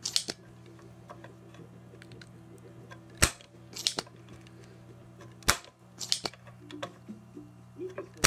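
Spring-loaded desoldering pump clearing solder from circuit-board pins, its plunger going off in sharp snaps, with softer plastic clicks between. Loud snaps come a little over three and about five and a half seconds in and again at the very end.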